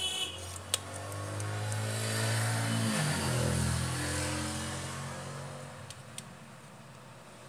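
A motor vehicle engine running, its pitch dipping and climbing again about three seconds in, then slowly fading. A few light clicks are heard, once near the start and twice near the end.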